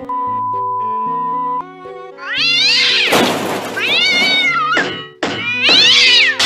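Background music with a steady electronic beep at the start, about a second and a half long. Then a cat meows loudly three times, each call about a second long and rising then falling in pitch.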